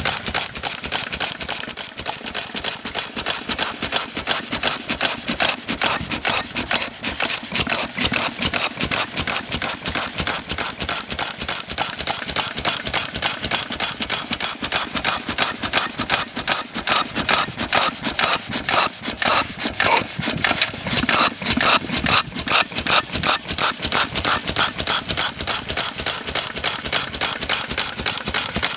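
Lister Junior type A single-cylinder stationary engine running steadily with a fast, even mechanical clatter. It is an unrestored engine whose owner reports very low compression.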